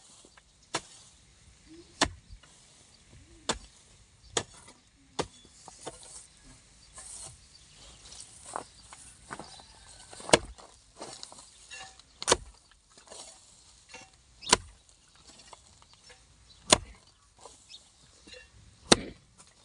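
Hoe blade chopping into dry, grassy soil, a dozen or so sharp strikes. Through the second half they come about every two seconds, with scraping and rustling of dry grass and earth between them.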